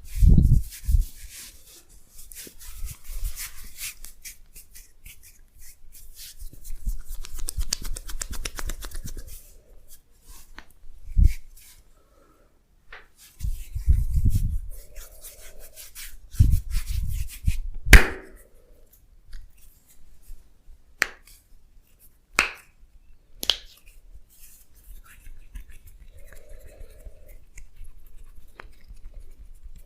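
Hands working over skin and hair during a massage: rubbing and brushing, several dull pats or slaps, and a few sharp clicks in the second half, the first of them the loudest.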